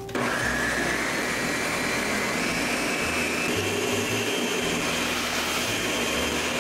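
High-power countertop blender switched on and running steadily at full speed, blending a thick nut-based cheese sauce. The motor's whine rises slightly as it comes up to speed.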